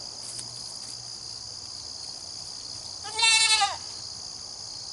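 A young goat kid bleating once, about three seconds in, a single call of about half a second with a wavering, arched pitch.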